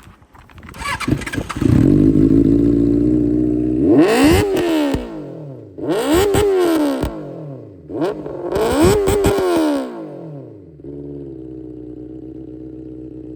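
Benelli 600i's inline-four engine revved hard three times on the stand, each rev rising and falling in pitch, then settling back to a steady idle.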